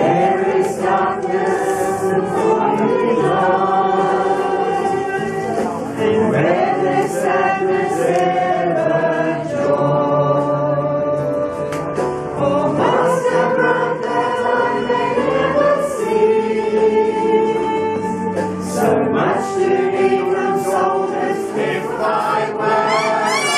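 Congregation singing a hymn together, with long held notes that move from one pitch to the next.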